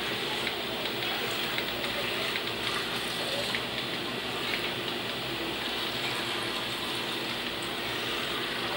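Steady trickling, bubbling water in a home aquarium, with a faint steady hum under it and a few tiny ticks.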